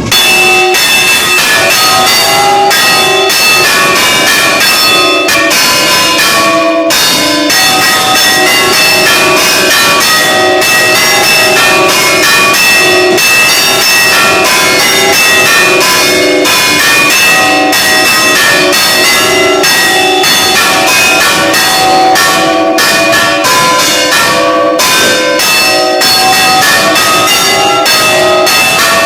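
Church bells ringing continuously: several bells of different pitch struck in quick succession, each stroke ringing on into the next.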